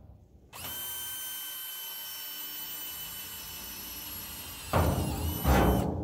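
Power drill drilling drainage holes in a galvanized steel livestock water trough. The drill spins up about half a second in and runs with a steady high whine, then gives two loud bursts near the end as the bit cuts into the sheet metal, and stops.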